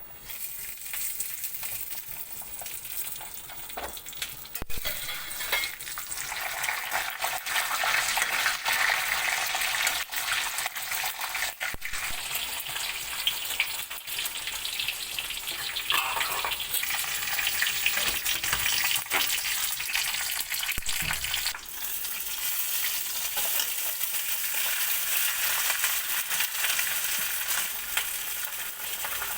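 Food sizzling as it fries in hot oil in a cooking pot for pulao, starting as it goes in and growing louder a few seconds later. It is stirred, with scattered clicks of the spoon against the pot.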